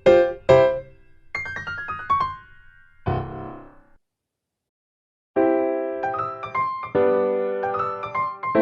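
Soft background piano music: a few struck notes and a short rising run, which stops completely for about a second and a half before chords start again.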